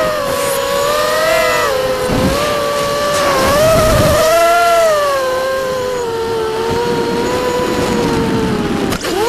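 Vortex FPV racing quadcopter's electric motors and propellers whining, heard onboard, the pitch rising and falling with the throttle. Near the end the whine dips sharply and climbs back as the throttle is cut and punched again.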